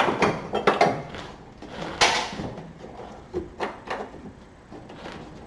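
Irregular metal clanks and knocks as a tool pries the mower's engine up off its mount, the loudest about two seconds in.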